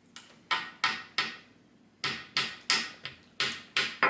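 A run of sharp knocks, about three a second, of a hard object banging repeatedly on a hard surface, with a short pause about halfway through.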